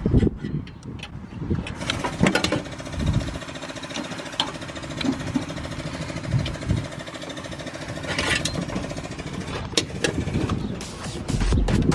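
Irregular clicks, knocks and rubbing as spark plug wires are worked off the distributor cap of a Volkswagen Beetle's air-cooled engine. Electronic music starts near the end.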